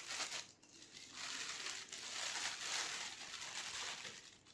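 Packaging rustling and crinkling as a camera lens is unpacked from its box and pouch: a short rustle, then a longer stretch of handling from about a second in.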